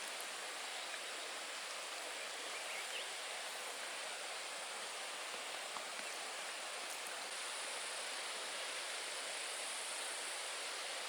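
Steady rain falling, an even hiss with a few faint drops ticking now and then.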